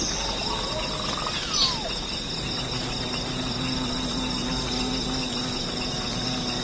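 Jungle ambience of steady insect chirring, with one short falling call about one and a half seconds in.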